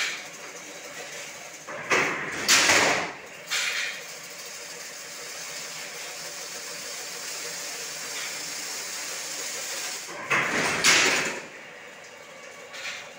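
Automatic chain-link fence weaving machine running, with a steady hum and a faint steady tone. Twice, about eight seconds apart, it makes a loud noisy surge lasting a second or so, each followed by a shorter, smaller one.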